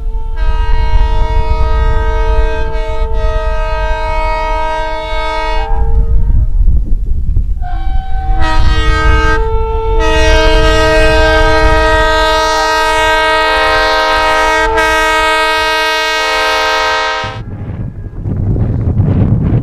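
Diesel locomotive's multi-chime air horn sounding a chord of several tones: one long blast, two short ones, then another long blast. Under it is a constant low rumble from the locomotive plowing through snow. Near the end the horn cuts off abruptly and only a low rumble remains.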